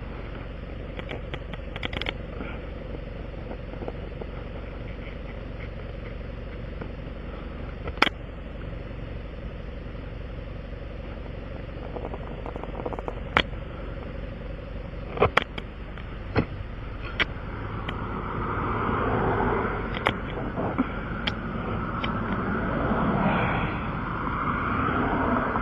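Hand tools clicking and clinking now and then during a tire-plug repair, over a steady low engine hum. A louder rushing sound builds in the last third.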